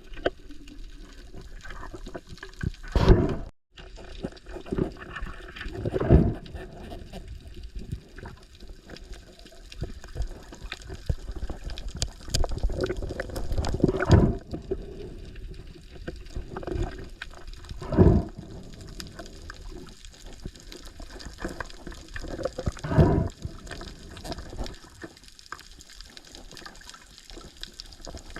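Water sloshing and gurgling around the microphone, with louder splashing surges every few seconds.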